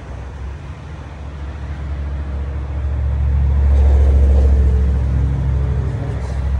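Low motor-vehicle engine rumble that swells to its loudest about four seconds in, then eases off.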